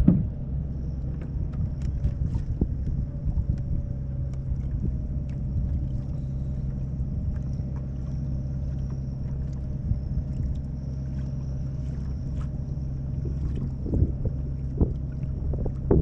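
A small boat's motor running steadily with a low, even hum and a faint high whine, with occasional knocks and wind on the microphone.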